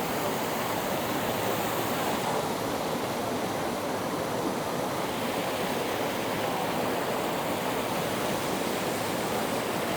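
Waterfall water rushing steadily, an even, unbroken hiss.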